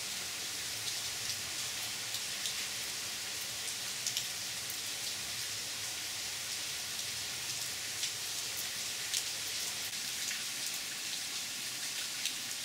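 Rain falling onto a pool of standing water: a steady hiss of many drops, with single close drop splashes standing out every second or so.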